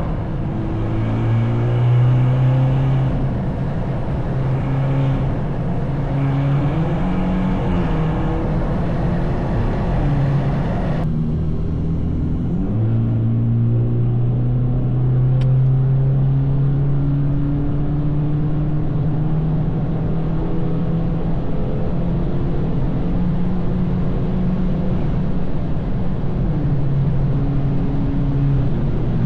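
BMW 220i's B48 turbocharged 2.0-litre four-cylinder, stage 2 tuned with a straight stainless downpipe and M240i exhaust, driving along with the engine note rising and falling. About eleven seconds in the hiss drops away as the engine comes off the throttle and the pitch dips, then it picks up again and holds a steady cruise.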